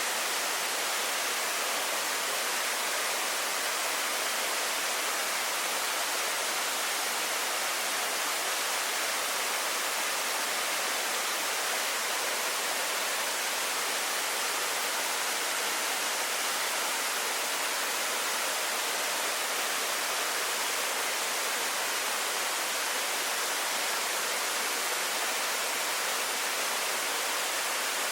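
Waterfall rushing: a steady, even hiss of falling water, strongest in the high range, with no other events.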